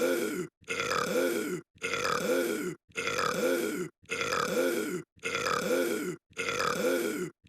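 A deep, croaky burp repeated over and over, about once a second. Each copy is the same burp, cut off by a short dead silence before the next, as if one burp were looped.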